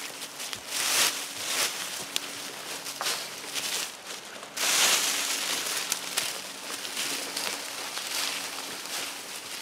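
Dry fallen leaves and brush crunching and rustling under footsteps and handling of branches, with louder surges about a second in and about halfway through.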